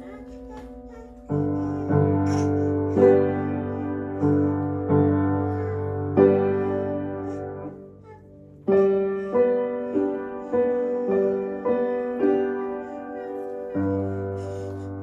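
Piano playing a slow piece, with chords and melody notes struck in a steady, unhurried rhythm. There is a brief pause just past halfway, then the playing resumes.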